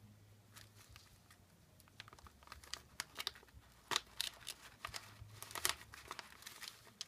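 Clear plastic pocket-letter sleeve crinkling and rustling as lace trim is handled and pushed into its pocket, a faint scatter of small crackles that gets busier about halfway through.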